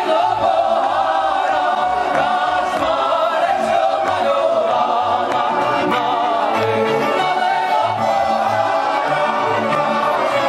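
Slovak folk song performed live: a male lead singer and a group of voices singing together, backed by violins, accordion and a plucked double bass keeping a steady beat.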